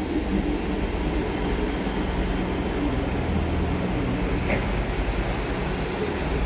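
Passenger train pulling into the station: a steady low rumble with a faint engine hum underneath.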